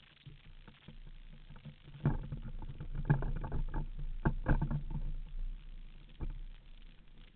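Low rumbling wind buffeting on a camera fixed to a hang glider's control bar, with a run of sharp knocks and rattles starting about two seconds in and easing off after about five seconds, as the glider is handled on the launch ramp.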